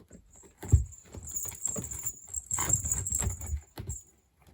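A cat wrestling and kicking a fish toy: irregular soft thumps and rustling scuffles, with a sharper thump about three-quarters of a second in and the busiest scuffling past the middle.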